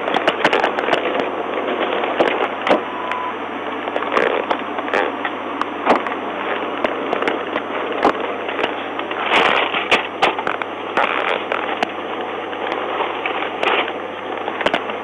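Continuous crackling static with many scattered sharp clicks over a steady low hum, from a police dashcam's wireless microphone audio channel.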